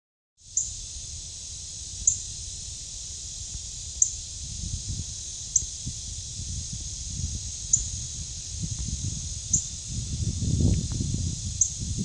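Male northern cardinal giving sharp, high chip calls, seven single notes about one and a half to two seconds apart, over a steady insect drone.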